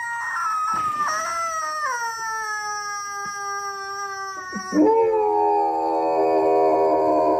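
Dog howling: one long drawn-out howl that slowly sinks in pitch, with small breaks along the way. Near the end a lower, steady sustained tone takes over.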